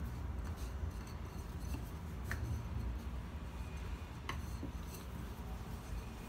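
Thin wooden rolling pin rolling sweet bread dough flat on a floured countertop: a dull low rumble, with two light wooden taps about two and four seconds in.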